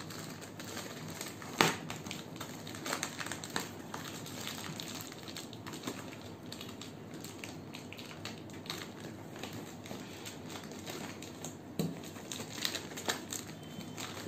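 Plastic courier mailer being cut open with a snap-off utility knife and pulled apart by hand: continuous crinkling and rustling of the plastic wrap with scattered clicks. A sharp click comes about a second and a half in, and a cluster of clicks near the end.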